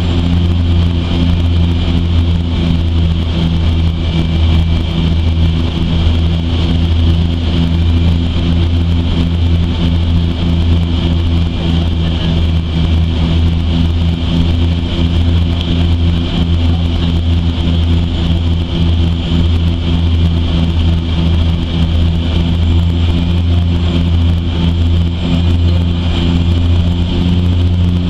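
Cabin noise of a de Havilland Canada DHC-6 Twin Otter in flight: its turboprop engines and propellers give a loud, steady low drone with a higher whine above it.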